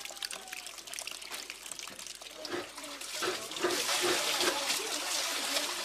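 Water splashing and trickling in many small clicks, getting louder about halfway in, with voices in the background.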